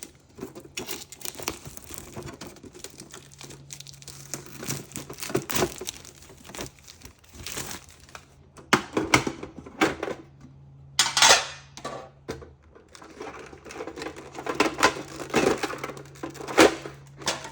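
Plastic wrapping crinkling and tearing as a sealed metal trading-card tin is unwrapped and opened, with irregular clicks and taps. The loudest rustling burst comes about eleven seconds in.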